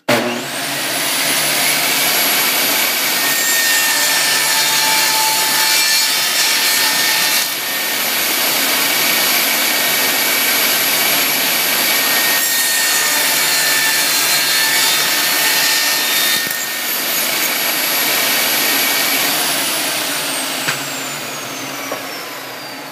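Table saw starting up with a quick rising whine, then running and cutting a wooden bar with the blade tilted to 45 degrees. Near the end it is switched off and its whine falls as the blade spins down.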